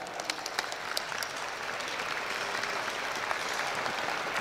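Audience applauding, a steady clatter of many hands clapping that greets the naming of the group winner.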